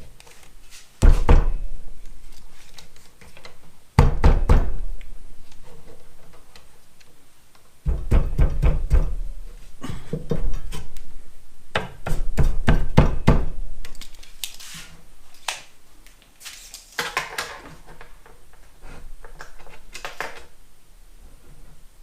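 Heavy thuds and knocks on wood, the loudest in groups of quick strikes through the first two-thirds, then lighter knocks and clatter.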